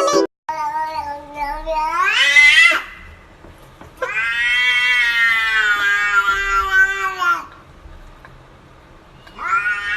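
A cat giving long, drawn-out meows, three in all: the first rising in pitch at its end, the second held longer and fairly level, the third starting near the end.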